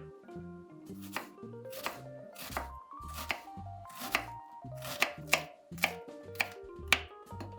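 Knife chopping food on a cutting board: about nine separate sharp strokes, unevenly spaced roughly a second apart, over background music.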